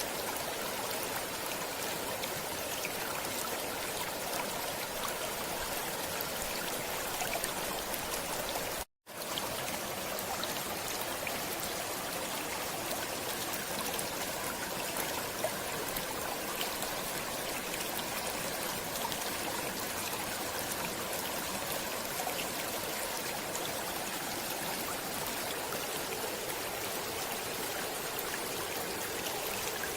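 A stream of water flowing steadily, a continuous rushing and trickling. The sound cuts out completely for a split second about nine seconds in.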